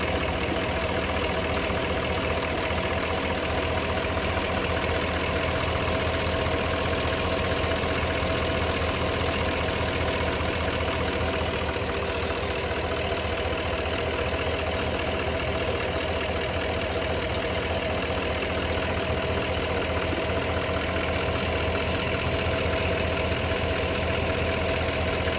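Cadillac Escalade Hybrid's 6.0-litre Vortec V8 idling steadily with a ticking that comes and goes, heard from the driver's side bank. The owner wonders whether the tick is the fuel injectors.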